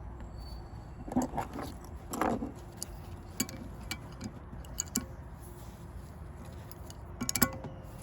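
Hand tools and metal parts being handled on an engine: scattered clicks and light metal knocks, two short louder scrapes about one and two seconds in, and a quick cluster of clicks near the end, over a low steady hum.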